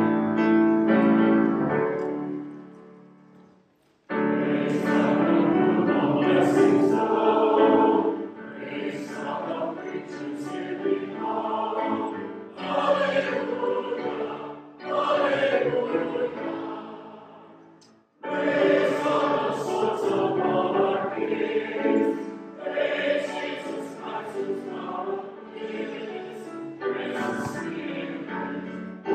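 Church choir singing a hymn with piano accompaniment, in long sung phrases broken by brief pauses about four seconds in and again near eighteen seconds.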